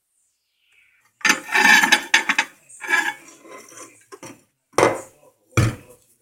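Dishes being handled: a second or so of clattering and scraping, a few lighter clicks, then two sharp knocks near the end.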